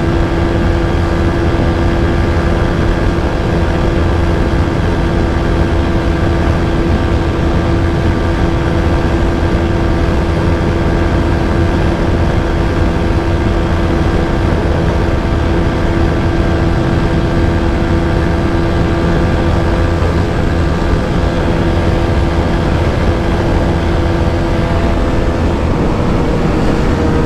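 TVS Apache RTR 160 4V's single-cylinder engine held at a steady high note at its top speed of about 136 km/h, with heavy wind rush on the microphone. Near the end the engine note starts to fall as the throttle is eased off.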